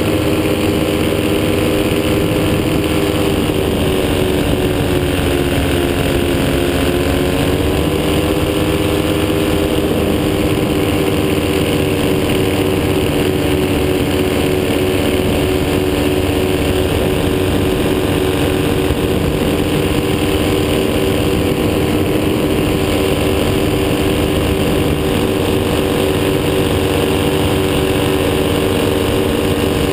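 Powered paraglider's engine and propeller running steadily in flight. The engine note sags lower a few seconds in, then comes back up and holds steady.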